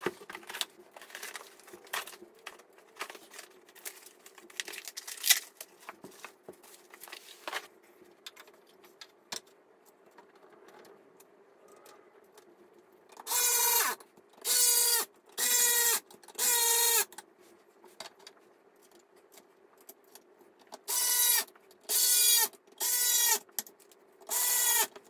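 A small cordless electric screwdriver runs in short whirring bursts under a second each as it drives screws into a bamboo bench frame. There are four bursts in quick succession about thirteen seconds in and four more near the end. Before them come light clicks and rattles of bamboo panels and hardware being handled.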